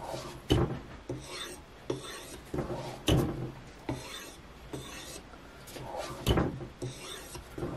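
A Washita (Arkansas novaculite) whetstone and the steel edge of a Kizlyar hatchet rasping against each other in about a dozen uneven sharpening strokes, a few of them louder. The coarse stone is biting into the steel.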